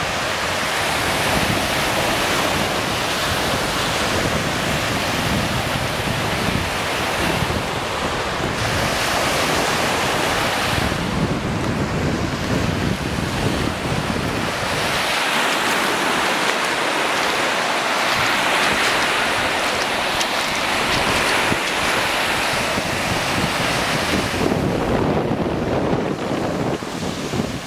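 Lake Michigan's small waves breaking and washing up the sandy shore, with wind buffeting the microphone in an uneven low rumble that eases for a few seconds midway.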